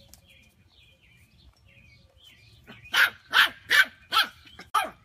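A puppy barking five times in quick succession, starting about three seconds in, short high barks. Faint chirping comes before the barks.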